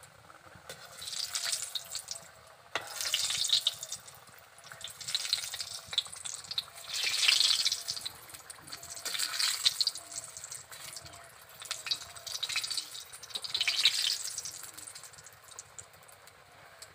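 Gur pitha (jaggery-sweetened dough cakes) deep-frying in hot oil in an iron kadai, the oil sizzling in swells that rise and fade about every two seconds.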